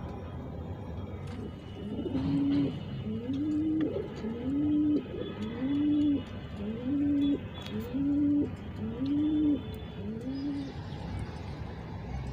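Domestic pigeon cooing: a series of about eight low, arched coos, roughly one a second, starting about two seconds in and stopping a little before the end.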